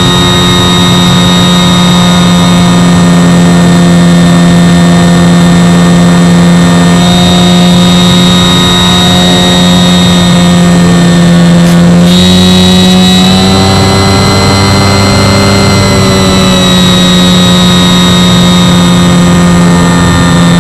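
Electric motor and spinning propeller of an RC floatplane heard close up from on board: a loud, steady whine made of several held tones over a rushing hiss. The pitch steps up slightly about twelve seconds in.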